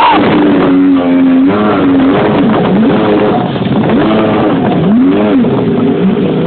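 Jet ski engine revving hard, its pitch rising and falling over and over, about once a second, as the throttle is worked.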